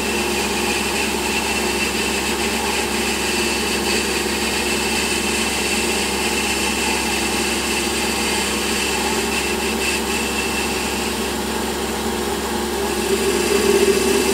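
Warco metal lathe running steadily, its cutting tool taking a light cut along the diameter of a metal pulley: an even machine hum with a thin steady whine.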